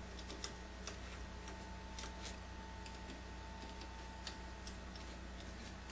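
Faint room tone: a steady electrical hum with a thin high tone, and a few light, irregularly spaced clicks.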